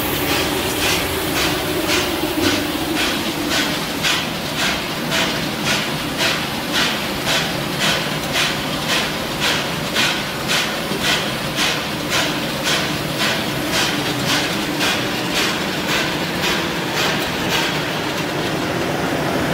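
Three-layer continuous nut roasting machine running: a steady whir with a regular mechanical knock about twice a second. Near the end the knocking fades and the steady whir remains.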